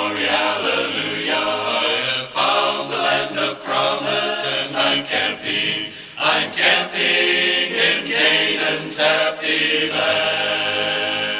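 Male gospel vocal group singing the song's closing line in close harmony, ending on a long held chord near the end.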